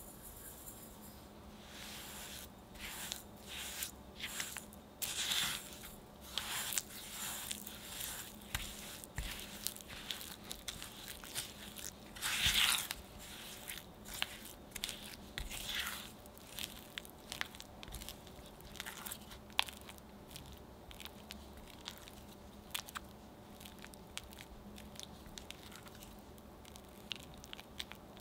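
Granulated sugar poured onto mascarpone cheese in a glass bowl, then a spatula pressing and scraping the cheese and sugar against the glass in irregular strokes. The strokes are heaviest in the first half and grow lighter and sparser later as the mixture smooths out.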